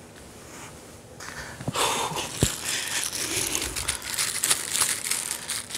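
A packet or wrapper being crinkled and crumpled in someone's hands, starting about a second and a half in: a dense, crackly rustle full of small clicks, with a few soft thumps.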